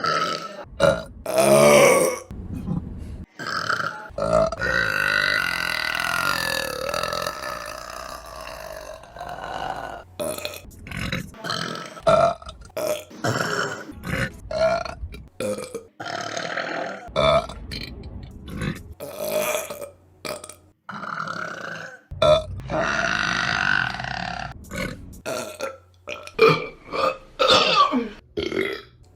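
Women burping, one burp after another with sudden breaks between them: mostly short belches, with a few long drawn-out ones lasting several seconds, the longest a few seconds in.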